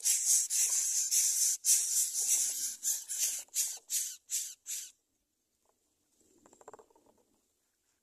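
Greater coucal nestlings hissing in harsh, repeated bursts. The bursts come close together at first, then thin out into short separate hisses about three a second, and stop abruptly about five seconds in.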